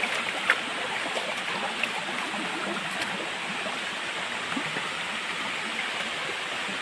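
Shallow stream rushing over rocks, with a waterfall ahead: a steady hiss of moving water. A short sharp click about half a second in and another just before two seconds.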